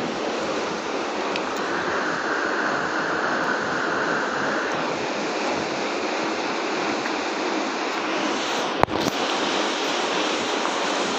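Water spraying onto a big block of green marble, a steady rushing noise, with one sharp click about nine seconds in.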